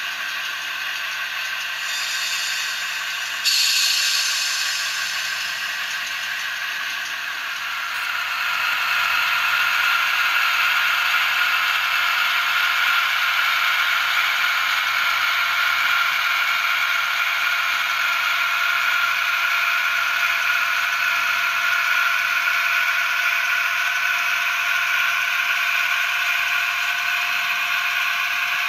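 Sound decoder in a model Class 28 Co-Bo locomotive playing its Crossley two-stroke diesel engine sound through the model's small speaker, thin and with little bass. A short burst of air hiss comes about three seconds in. About eight seconds in, the engine note rises and grows louder, then holds steady as the locomotive runs.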